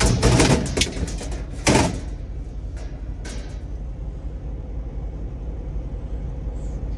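Metal access plate under a truck's sleeper bunk being handled: scraping and clattering at the start, a sharp knock just under two seconds in, then a few faint clicks over a low steady hum.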